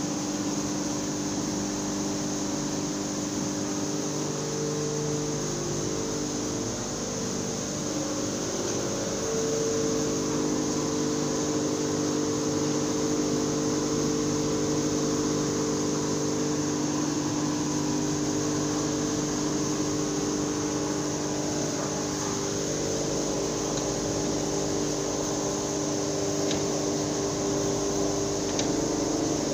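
Grain-mill machinery running in a plant that looks like a rice mill: a steady mechanical hum made of several steady tones, with a high hiss over it. A few faint clicks come near the end.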